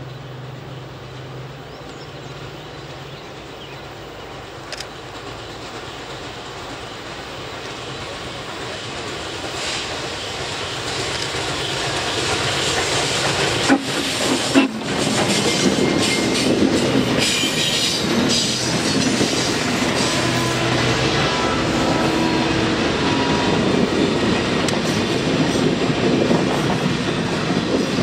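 Norfolk & Western 611, a J-class 4-8-4 steam locomotive, approaching and running past at speed, growing steadily louder until it passes about halfway through. Two sharp knocks sound as it goes by, and then its passenger cars roll past with the clickety-clack of wheels over the rails.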